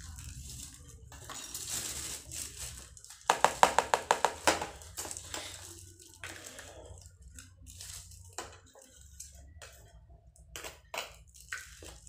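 Dry ground fish-bait grains poured from a clear plastic bag into a plastic tray and spread by hand, with the bag rustling and the grains scraping. A quick run of about eight sharp rattling strokes a little over three seconds in is the loudest part.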